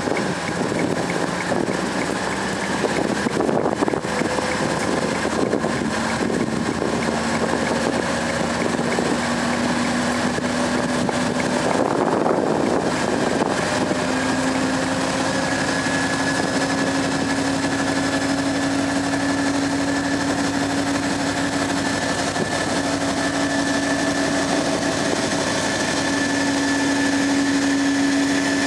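Class 56 diesel-electric locomotive's Ruston-Paxman 16-cylinder engine working hard as it moves off with a heavy loaded log train, a steady drone whose pitch rises slowly as the train gathers speed.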